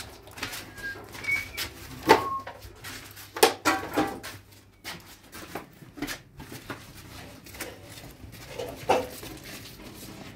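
Knocks and clatter of a metal space heater being lifted and carried, with loud bumps about two, three and a half, four and nine seconds in, and a few short high chirps near the start.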